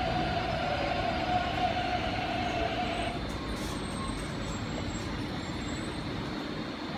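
MTR East Rail line R-Train electric multiple unit pulling into a station platform and slowing, its wheels rumbling on the track. A steady whine sounds over the rumble and cuts off about three seconds in.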